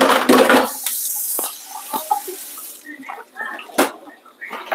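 Kitchen tap running water into the sink for about three seconds, then shut off, followed by quieter handling sounds and a couple of sharp knocks.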